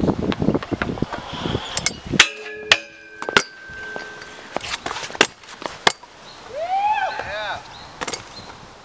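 Sharp clacks and knocks of a stunt scooter's deck and wheels striking hard ground, about half a dozen separate hits, with a voice calling out about two-thirds of the way through.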